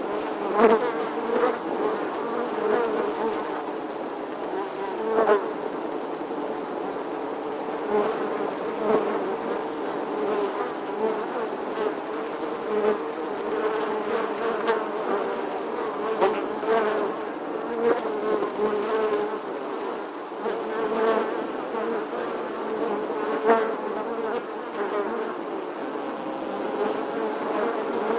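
A bee buzzing steadily, the hum wavering slightly in pitch and swelling louder now and then.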